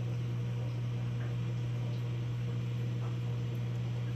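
Steady low electrical hum from running aquarium equipment, even throughout with no change.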